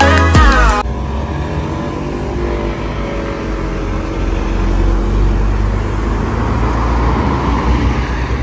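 Background music cuts off under a second in, then steady road-vehicle noise: a low engine rumble with road hiss.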